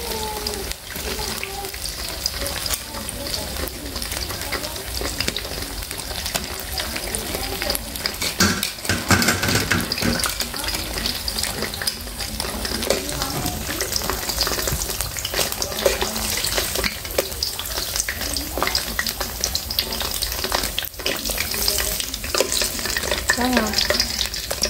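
Batter-coated fruit pieces deep-frying in a wok of hot oil: a steady crackling sizzle. Now and then a wire strainer and a stirring utensil click and scrape against the wok.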